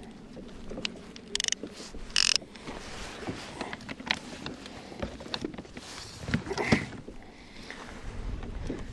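Fishing rods and tackle being handled on a kayak: scattered clicks and knocks, with two short rasping bursts about one and a half and two seconds in, over wind and water noise.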